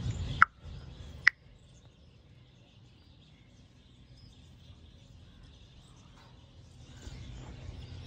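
Two sharp clicks in the first second and a half, ostrich beaks pecking at a feed trough, then faint outdoor background.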